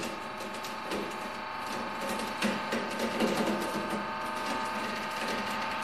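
Hydraulic press running with a steady whine while its ram crushes a lightweight composite lattice truss, which crackles with many small snaps as its rods break. The cracking is louder and denser about two and a half to three and a half seconds in.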